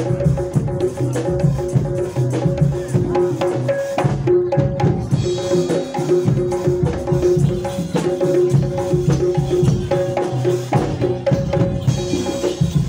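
Javanese jaranan ensemble music: drums beating a busy rhythm under a repeating two-note melody.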